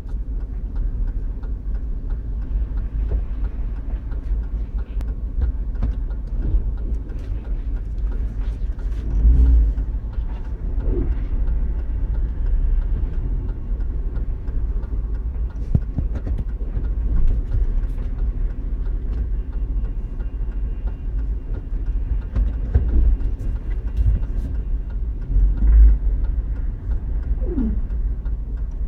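A GMC Yukon Denali on the move: steady low road rumble, with a few short creaks at intervals, the last one near the end sliding downward in pitch.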